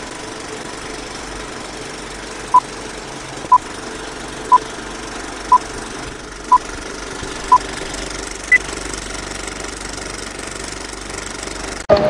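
Film projector running with a steady rattle, as an old film-leader countdown effect. Over it, short beeps sound once a second, six at one pitch and then a seventh higher. Near the end it cuts off abruptly.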